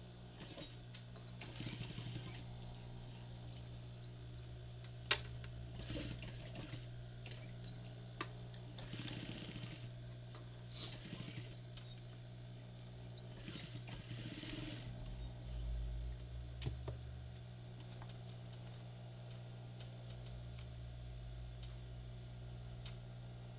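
Sewing machine stitching a shirt cuff in several short runs of about a second each, with a steady motor hum between them and a few sharp clicks.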